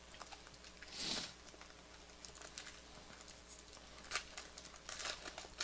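Trading cards being handled and shuffled: faint scattered clicks and ticks, with a soft rustle about a second in and a few sharper ticks near the end.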